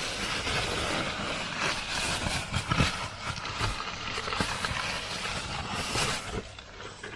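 Rustling and handling noise with scattered clicks and knocks, as packaging is opened and a motorcycle slip-on exhaust is handled.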